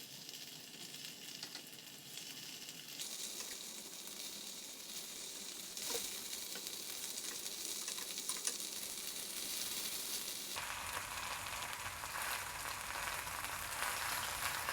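Paneer cubes shallow-frying in hot oil in a kadai: a steady sizzle that grows louder about three seconds in and again near ten seconds, with a few light clicks.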